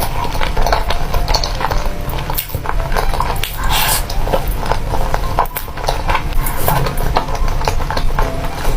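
Close-miked mouth sounds of eating spicy noodles and enoki mushrooms: wet chewing with many quick little clicks and smacks, going on without a break.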